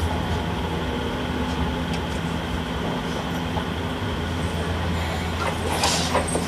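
Interior running sound of an Enoshima Electric Railway 1000-series resistance-controlled car creeping slowly along a platform as it comes in to stop. A steady low hum runs throughout, and a few sharp clicks come about six seconds in.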